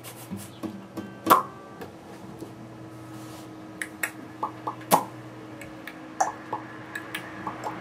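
Acoustic guitars picked idly: a few scattered single plucked notes and string taps, not a played tune, over a steady low hum.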